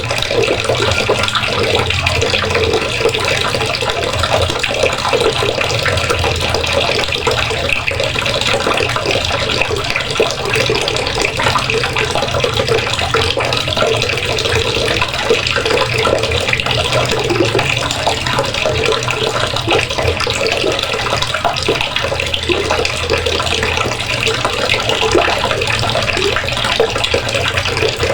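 Water running steadily from a faucet in a constant, unbroken stream and splashing below.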